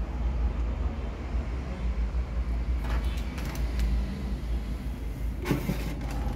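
Steady low rumble of background noise, with a few short clicks about three seconds in and near the end.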